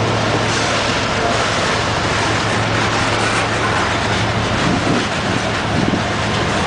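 Freight cars of a coal train rolling past close by: the steady noise of steel wheels running over the rails and the cars rattling, holding an even level throughout.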